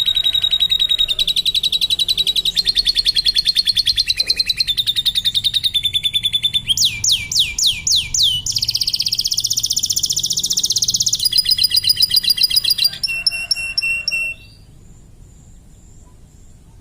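Domestic canary singing a long song of fast trills, switching from one trill to another every second or two, with a quicker rolling run of high notes around the middle; the song stops abruptly about fourteen seconds in.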